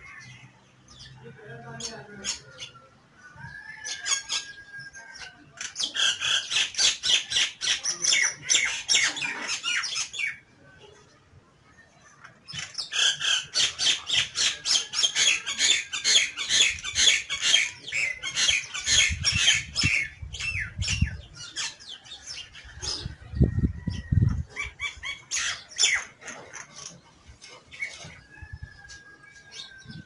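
Common myna calling: long runs of rapid, harsh chattering notes, several a second, broken by short whistled notes. A low rumble comes in twice in the second half.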